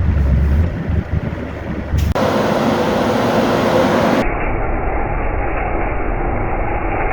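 Farm machinery running steadily, changing abruptly twice: first a deep engine hum, then a louder, steady machine noise with a faint steady tone.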